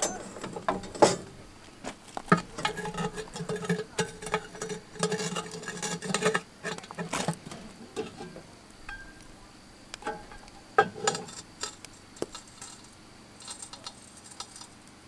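Metal clinks, knocks and scrapes of a steel lid lifter and the coal-covered cast-iron Dutch oven lid as the lid is hooked, rattled and lifted. There are sharp knocks about a second in, near seven seconds and near eleven seconds, with a busy run of clinking in between.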